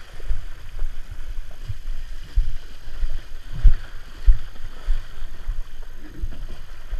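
Water sloshing around a surf boat's hull as the crew wade it through shallow water, with irregular low thumps, the loudest about halfway through.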